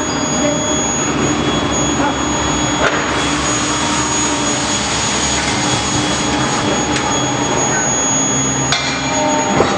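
Medium-frequency induction forging furnace running under power: a steady high-pitched whine over loud, continuous machine noise, with a few sharp metallic clanks, one about three seconds in and two near the end.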